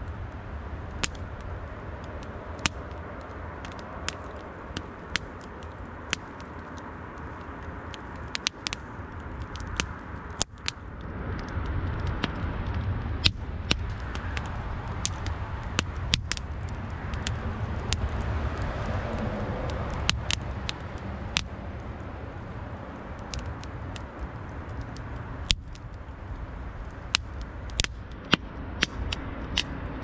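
Wood fire burning in a metal fire bowl, crackling with irregular sharp pops over a steady low rumble. The flames grow louder from about a third of the way in to about two thirds through.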